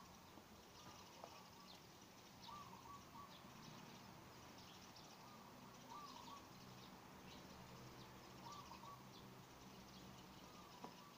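Faint outdoor ambience: a bird repeating a short call every two to three seconds, with fainter high chirps and a low hum.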